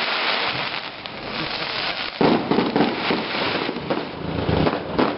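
Fireworks display going off: a dense crackle of many small bursts and pops, growing suddenly louder about two seconds in.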